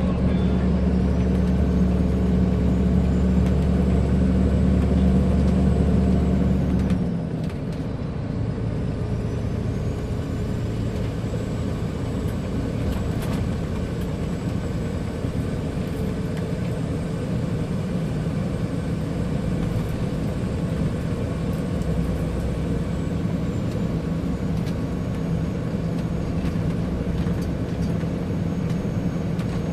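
Scania 124L 420 truck's straight-six diesel running on the road, loud and pulling hard for about seven seconds. It then drops to a lighter, steady drone.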